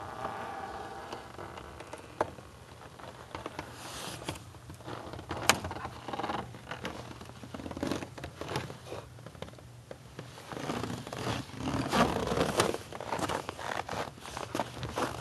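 Irregular rustling and scraping close to the microphone with scattered sharp clicks, getting busier and louder near the end: handling noise from a handheld camera being moved about.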